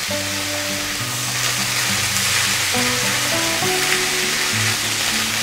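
Boiled chickpeas coated in ground masala sizzling in oil in a non-stick frying pan as a spatula stirs them, a steady sizzle with scraping. Soft background music plays underneath.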